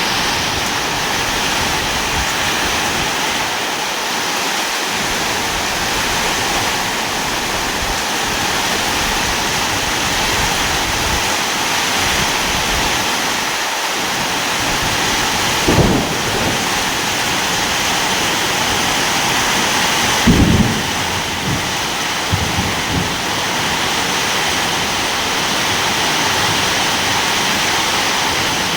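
Steady heavy rainfall, an even hiss with no let-up. A few brief low booms break through it, about sixteen and twenty seconds in and twice more soon after.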